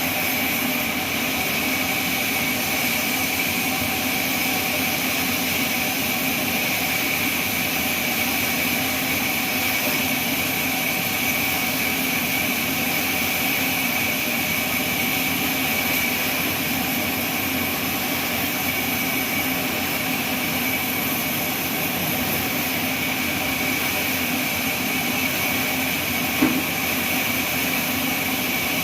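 Band sawmill running steadily, a constant machine drone with a high whine over it. One short knock about 26 seconds in.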